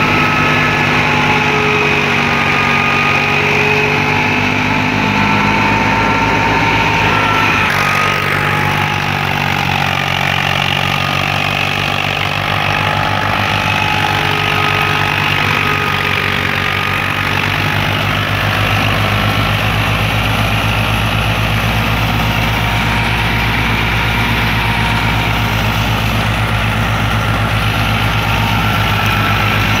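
Ghazi 65 hp diesel tractor engine running steadily under load, driving a wheat thresher through its PTO shaft, with the thresher's drum and fan running. A higher whine wavers in pitch over the engine's steady drone.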